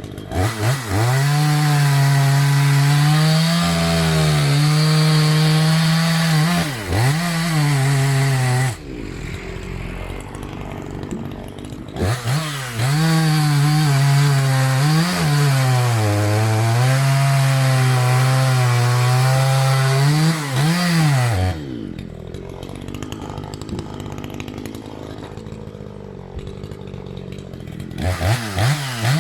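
Maruyama MCV5100S two-stroke chainsaw cutting wood at full throttle, its pitch dipping and recovering under load, in two long cuts. It drops to idle between the cuts, then gives a few quick throttle blips near the end.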